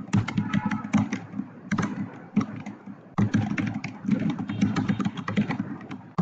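Computer keyboard typing: quick runs of keystrokes entering a line of text, with a short lull about halfway through.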